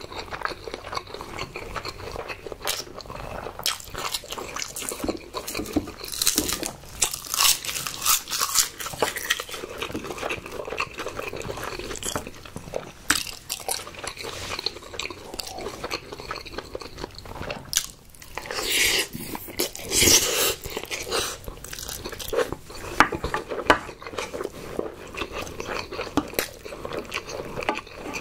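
Close-miked, wet chewing and smacking of a person eating a mouthful of rice, with a wooden spoon scraping the bottom of a glass baking dish. The loudest stretch comes about two-thirds of the way through.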